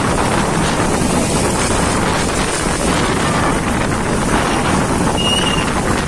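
Strong storm wind blowing hard against the phone's microphone: a loud, steady rush of noise.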